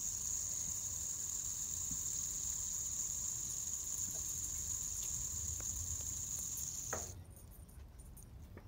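Plastic three-arm fidget spinner whirring on its ball bearings, a steady high hiss as it spins in the hand, which cuts off about seven seconds in when it stops, with a small click of fingers on it then and again near the end. A faint low rumble lies underneath.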